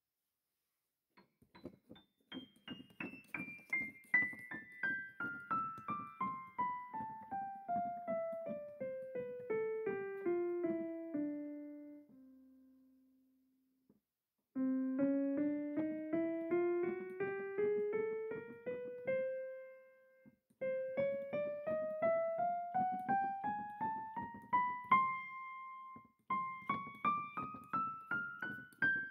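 Background piano music: one long run of single notes stepping down in pitch, then several runs stepping up, with brief pauses between the phrases.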